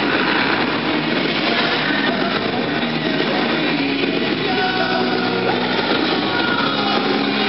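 Loud music playing over an arena's sound system, with a dense din under it.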